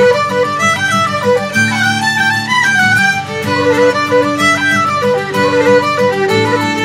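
Fiddle music: a quick melody stepping up and down over sustained low accompanying notes.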